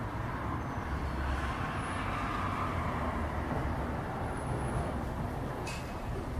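Distant jet engine noise of a Boeing 737 on landing approach: a steady low rumble with a rushing hiss that swells in the first few seconds, and one faint click near the end.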